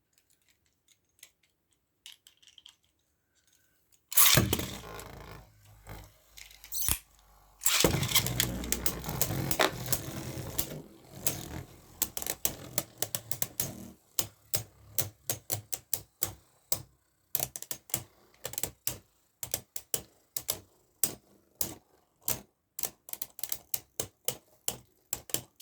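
Beyblade Burst spinning tops launched into a plastic stadium, one sudden whir about four seconds in and another about four seconds later, then spinning and clashing. A long run of sharp plastic clacks follows, several a second, as the tops collide.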